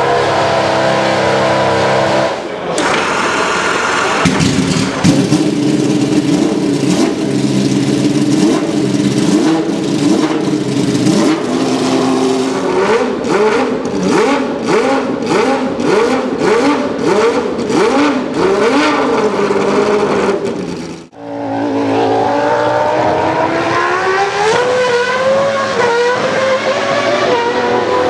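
Historic Formula 1 engines. One idles steadily for a couple of seconds. Then a Ferrari Formula 1 car's engine is revved hard on the stand in repeated sharp blips, its pitch swinging up and down. After an abrupt break about twenty seconds in, a car accelerates on the track with its engine note climbing in steps through the gears.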